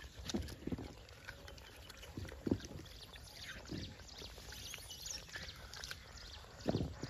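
Gray langurs feeding on apples scattered on open ground: a few short low thumps and faint high chirps at intervals.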